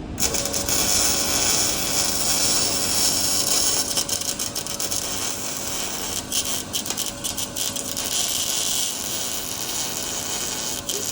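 Arc welder running a bead: a steady crackling hiss that starts abruptly and cuts off after about eleven seconds, turning more broken and sputtering partway through. The pass burns through the gap it is filling.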